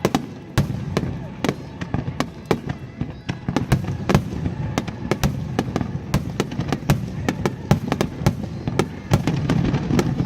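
Fireworks display going off in a rapid barrage: several sharp bangs a second over a low rumbling of bursts.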